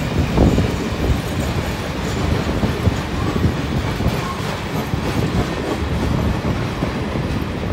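Heritage passenger carriages of a long train rolling past close by: a steady rumble of steel wheels on the rails, with a run of clicks as the wheels cross rail joints.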